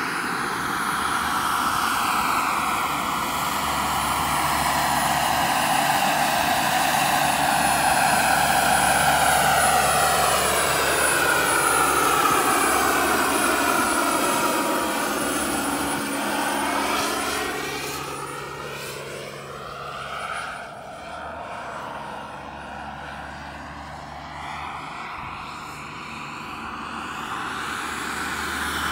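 Jakadofsky 5000 gas turbine and tandem rotors of a large RC Chinook model helicopter in flight: a steady high turbine whine over the beat of the rotors. It is loudest as the model passes close, with the sound sweeping in pitch, then fades from about two-thirds of the way in as it flies off, and grows again near the end.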